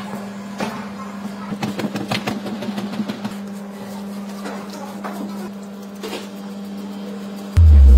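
Irregular knocks and slaps of hands kneading and pressing minced meat for kebab on a cutting board, over a steady low hum. Loud music starts suddenly near the end.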